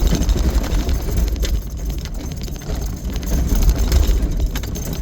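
Vehicle travelling over a rough dirt road: a steady low rumble of engine and tyres, with scattered knocks and rattles from the bumps.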